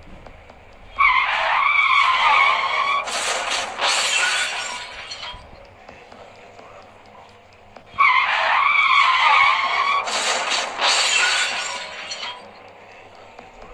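Car crash sound effect, played twice: tyres screeching for about two seconds, then a crash with shattering glass. The second run starts about seven seconds after the first.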